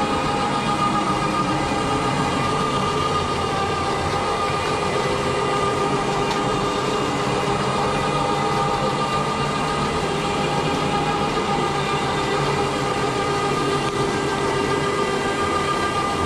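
Rotary hot-water extraction carpet cleaner running over carpet: a steady loud roar of vacuum suction and spinning head, with a constant high whine.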